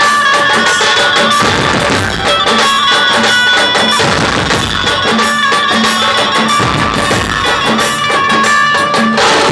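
Dhumal street band playing loud, drum-heavy music: rapid drum strikes under a held, repeating melody line.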